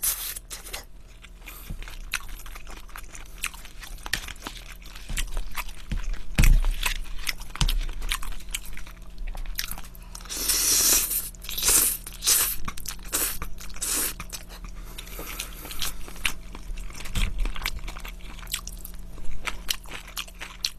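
Close-miked mouth sounds of eating: crunching and chewing fried shrimp in many small wet clicks. About ten seconds in comes a longer, louder slurp as spaghetti noodles are sucked up.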